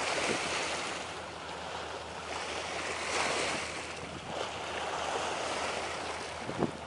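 Sea waves washing against rocks, the rushing noise swelling near the start and again about three seconds in. A short light knock near the end.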